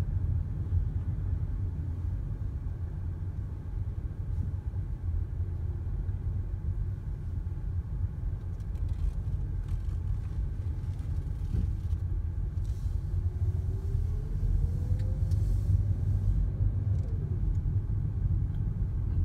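Steady low rumble of a car's road and engine noise, heard inside the cabin as the car rolls slowly. A faint tone rises in pitch a little past halfway, then drops away.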